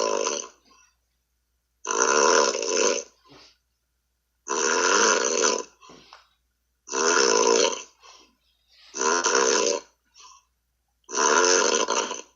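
A man snoring over a Skype call: rough, rattling snores about a second long, one every two seconds or so, about six in a row, with silence between them.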